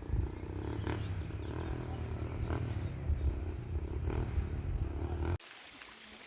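A large animal's low, rumbling growl, continuous and gruff, that cuts off abruptly about five seconds in, leaving only a faint background hiss.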